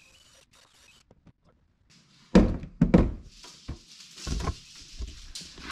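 Heavy dull thunks from work on the stripped Jeep Wrangler's bare body, about four of them. The first comes a little over two seconds in and the last about two seconds later, with a rustling hiss between them.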